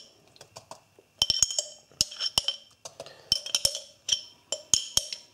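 Glass jar being knocked and tapped while held upside down to shake out thick ajvar paste: a dozen or so sharp, irregular clinks, each with a short glassy ring.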